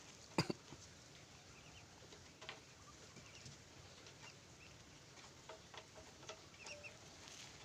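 Faint short bird chirps in small groups over a quiet background, with a few sharp clicks; the loudest click comes about half a second in.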